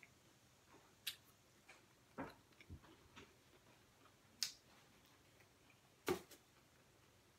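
A handful of soft, sharp clicks and smacks from eating with the fingers, as lips and teeth work meat off a fried chicken wing bone, over near silence. The loudest come about a second in, around the middle and about six seconds in.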